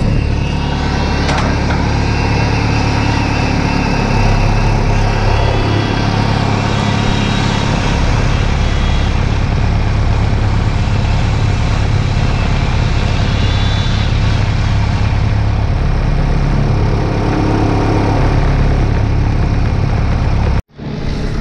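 Heavy logging machine's diesel engine running steadily, its pitch shifting a few times, then cutting off abruptly near the end.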